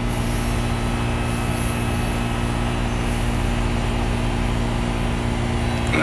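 Amana air conditioner's outdoor condensing unit running with a steady, unchanging hum.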